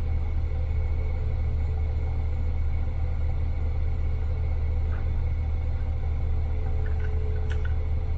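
Steady low hum throughout, with a few light clicks near the end from keys pressed on a mechanical keyboard.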